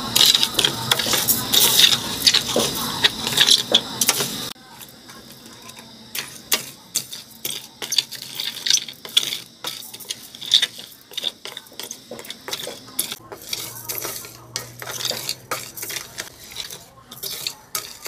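Wooden spatula stirring and scraping raw rice grains as they dry-toast in a pan for khao khua, a dense patter of small clicks and scrapes. It drops abruptly in loudness about four and a half seconds in, then goes on more quietly.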